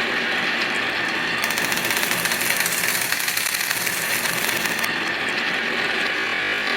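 Toy vehicles and marbles rolling down a wooden HABA wavy-slope marble-run track, a dense rattling clatter that gets busier and sharper from about one and a half seconds in until about five seconds.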